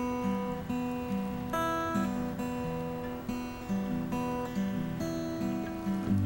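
Music: an acoustic guitar strummed and picked, its chords changing every half second or so.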